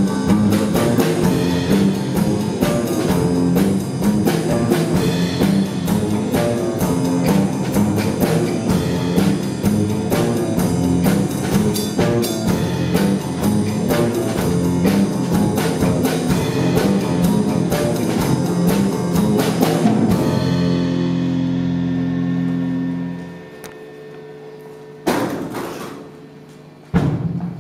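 Live band with a drum kit playing an upbeat number, ending on a held chord about twenty seconds in that dies away a few seconds later. Then a quiet stretch broken by two sharp thumps about two seconds apart.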